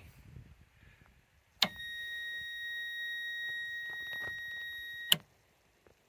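Southwire 10030S multimeter's continuity beeper sounding one steady, high-pitched beep for about three and a half seconds, starting about a second and a half in and cutting off with a click; the beep signals continuity through the battery cable under test.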